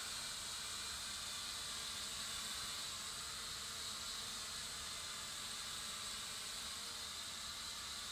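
Small foldable toy quadcopter hovering, its four small motors and propellers giving a steady, high-pitched hissing buzz.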